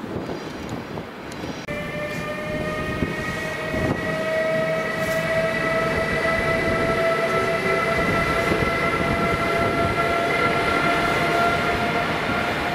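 Electric locomotive, a Siemens Vectron, running into the station. A whine of several steady tones starts about two seconds in, creeps slowly up in pitch and grows louder as the train approaches, over a rumble of rail noise.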